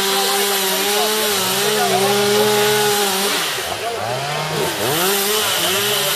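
Chainsaws running in the woods, more than one at once: a steady held engine note with other saws' pitch swooping up and down again and again as they are revved, felling trees.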